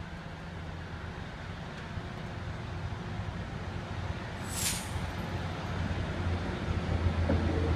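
Class 156 diesel multiple unit approaching a level crossing, its diesel engine running with a steady low hum that grows louder as it nears. A short high hiss falls in pitch about halfway through.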